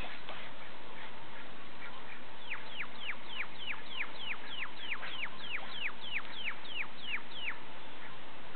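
An animal's call: a rapid series of about seventeen whistled notes, each falling sharply in pitch, about three a second, starting a couple of seconds in and stopping shortly before the end. Fainter short chirps sound in the background throughout.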